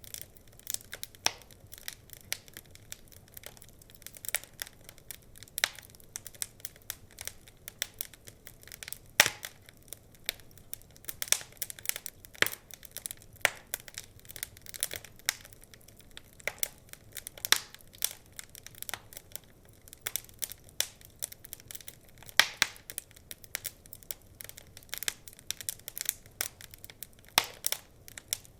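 Wood fire crackling: a steady stream of irregular snaps and pops over a faint hiss, with a few louder pops scattered through.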